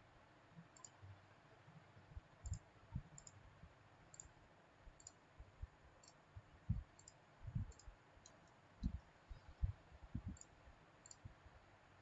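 Faint, irregular computer mouse clicks, a dozen or so, as lines are picked and a drop-down menu is opened in CAD software, with a few soft low thumps in the middle stretch.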